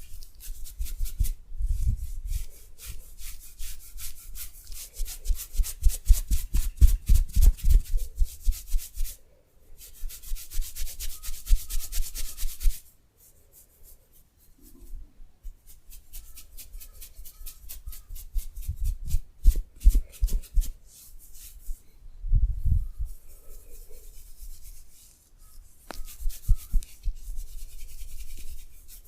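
Hands rubbing briskly over the body in a massage: bursts of fast, repeated strokes with short pauses between them.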